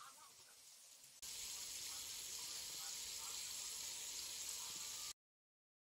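A steady hiss that starts abruptly about a second in and cuts off suddenly near the end.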